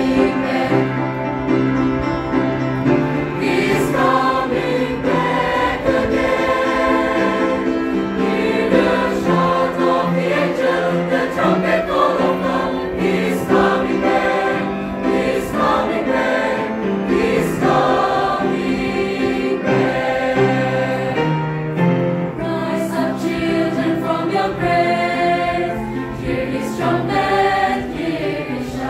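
A mixed choir singing a gospel song in several parts, with held notes that move together from chord to chord.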